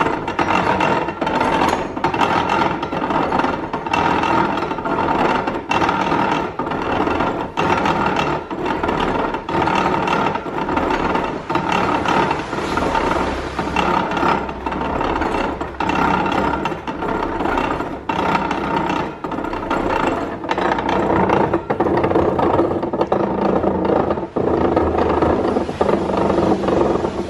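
Antique cider press apple grinder being cranked, its spoked flywheel, cast-iron gears and wooden pulverizer roller turning steadily. It makes a continuous clattering rumble with a regular knock about once a second. The press is freshly oiled and on a test run.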